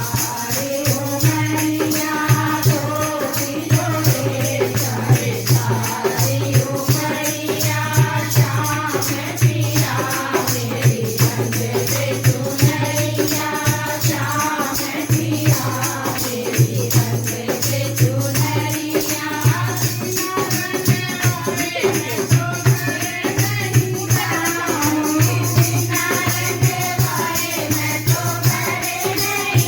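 Hindi devotional bhajan: a voice singing a melody over percussion that keeps a steady, fast beat.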